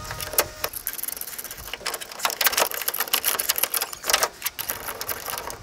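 Metal clicking and knocking from hand-tightening the clamp bolts of truck bed rack base mounts, in short quick bursts with single knocks between.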